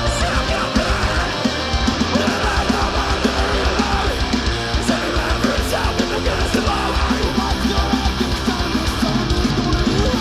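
Live heavy metal band playing an instrumental passage: distorted electric guitars, bass guitar and drums with frequent kick-drum hits, loud and dense throughout.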